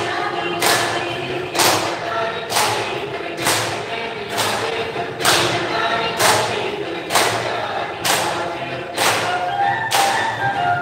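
Music with singing over a strong, steady percussive beat, about one hit a second, played as exercise-class music in a hall.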